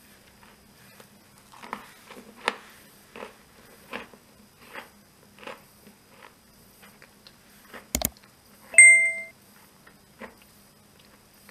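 Thin crisp waffles crackling lightly as they are handled and pressed together, a soft crunch about once every second. Then a sharp click and a bright, short bell ding from a subscribe-button sound effect, the loudest sound.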